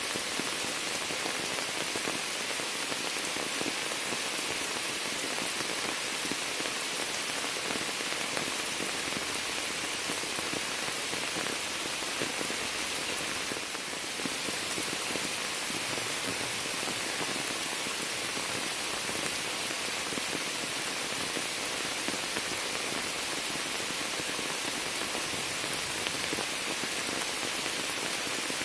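Rain falling steadily onto a sheet of standing water and the leaves of an overhanging shrub: an even hiss of splashing drops.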